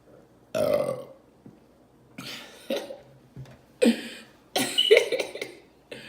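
A woman burping several times in short bursts, the loudest near the end, brought up by carbonated Coca-Cola Orange Vanilla.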